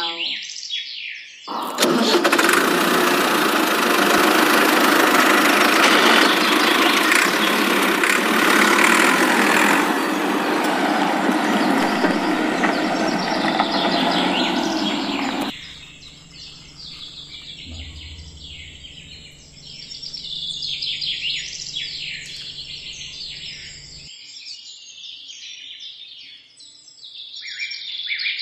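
Tractor engine sound starting about two seconds in and running loudly, dropping to a quieter steady hum about halfway and cutting off a few seconds before the end. Birds chirp in the background through the quieter part.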